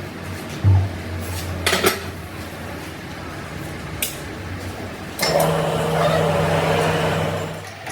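Metal tools and parts knocking and clanking during truck axle repair work, over a steady low machine hum. There is a loud knock just under a second in and a quick run of clanks near two seconds. From about five seconds a louder mechanical whirr runs for about two and a half seconds.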